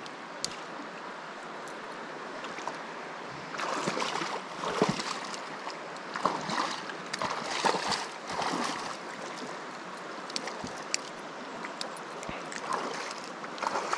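Small mountain trout stream running steadily, with louder irregular noise over several seconds in the middle and a few sharp clicks.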